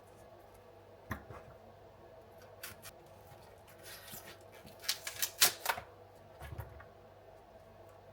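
Light clicks and taps of small objects being handled, with a quick cluster of clicks and rustling about four to six seconds in and a soft knock after it, over a faint steady hum.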